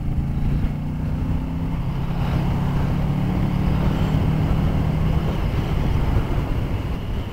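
Motorcycle engine heard from the rider's seat, pulling at a steady note while riding, with wind and road noise; the engine note fades about five seconds in.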